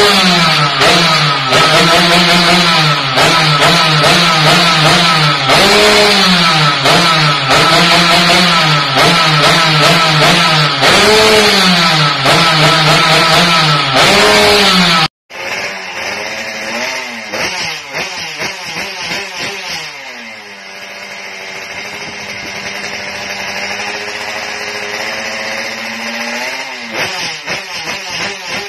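The two-stroke engine of a road-race-tuned Yamaha F1ZR underbone motorcycle, revved repeatedly in short throttle blips about once a second. Halfway through it cuts to a second underbone motorcycle revving; its engine settles lower, climbs slowly in pitch, then falls back near the end.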